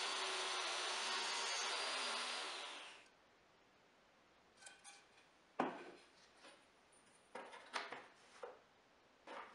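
Table saw running through a rip cut in a pine board, its steady whine and noise fading out within the first three seconds. Then a few light knocks and clinks as wooden boards and a steel ruler are set down and positioned on a plywood crosscut sled, the sharpest knock a little before the middle.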